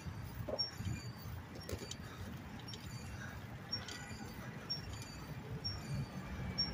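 Steady low rumble of a bicycle being ridden, with faint short high-pitched squeaks about once a second.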